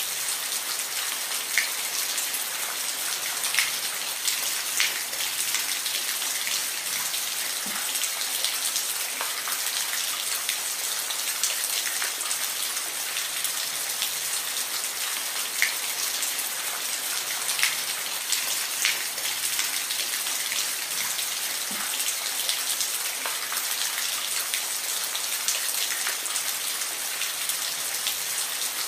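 Steady rain: a dense, even hiss of falling drops, with single louder drops ticking sharply every second or so.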